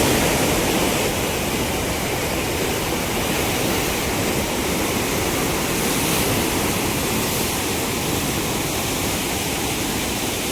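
Floodwater rushing through a dam's fully opened gates: a steady, loud wash of falling water, unchanging throughout.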